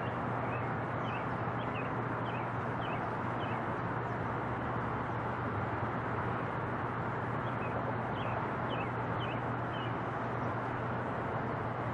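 Boeing 777 jet engines on approach, a steady rushing noise as the airliner flies away. A bird chirps in two runs of short high calls, one in the first few seconds and one about eight seconds in.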